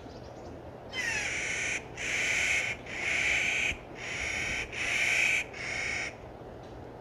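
A Clark's nutcracker giving a series of six loud, grating calls, each under a second long, in quick succession.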